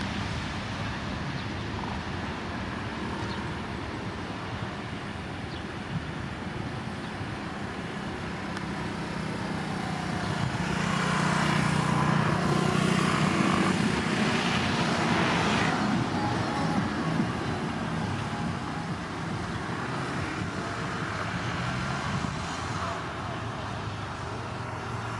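Airbus A321neo's twin turbofan engines at takeoff thrust: a steady jet roar with a low rumble that swells about halfway through as the aircraft races down the runway, then eases as it lifts off and climbs away.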